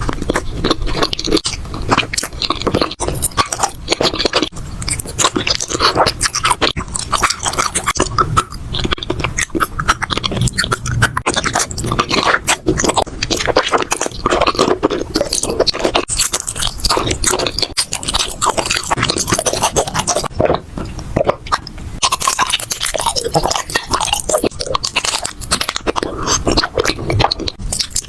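Close-miked chewing and crunching of crisp food, a dense, continuous run of crunches and bites for ASMR.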